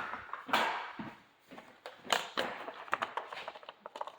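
Plastic clicks, knocks and scrapes from handling a vertical blind's valance and its rounded corner piece as the corner is trimmed and fitted, with a quicker run of small clicks in the last couple of seconds.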